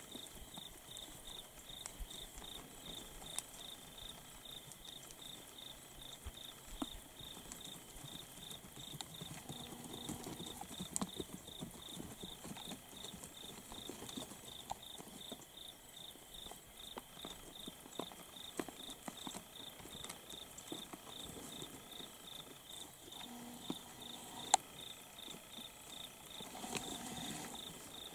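An insect chirping steadily in a high, even pulse of about three a second, with scattered light clicks and taps of deer hooves on stony ground and one sharper click near the end.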